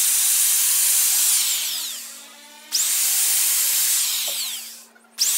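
Corded electric drill boring a small pilot hole through a wooden plank in short bursts. The motor runs at a steady high whine, winds down as the trigger is let go, spins up again a little under three seconds in and winds down, then starts once more near the end.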